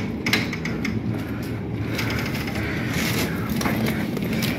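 Rustling and scraping of people and a handheld camera brushing past a rough wooden board, with scattered small knocks and clicks.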